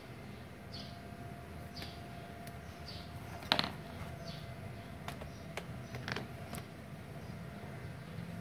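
Quiet workshop background with a faint steady hum, a few light clicks and knocks (the sharpest about three and a half seconds in), and short high chirps repeating about once a second.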